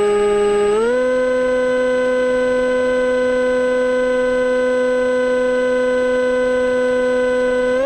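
Electric motor and propeller of an AXN floater jet whining steadily as heard onboard, the pitch stepping up about a second in and again near the end as the throttle is raised.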